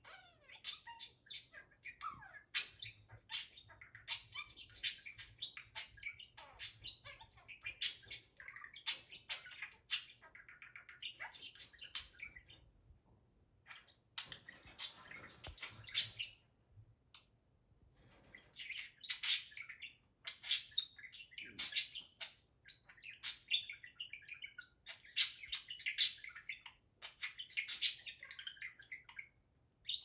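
Budgerigar chattering: a dense stream of quick chirps and warbles, broken by two short pauses around the middle.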